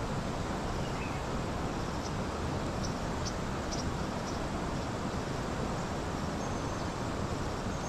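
Steady rushing of river water, with a few faint short high chirps about three seconds in.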